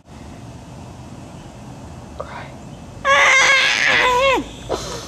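A loud, high, wavering cry in one voice, about a second and a half long, starting about three seconds in and falling in pitch at its end. It is followed by a couple of short breaths.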